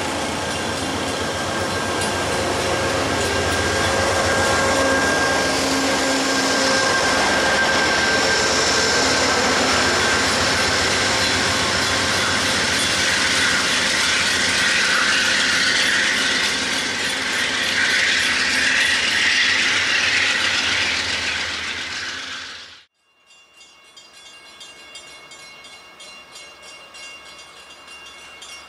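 Amtrak passenger train of Amfleet coaches with a diesel locomotive rolling along the platform track, a loud, steady rumble and clatter of wheels on rail. It cuts off sharply about 23 seconds in, leaving only faint background.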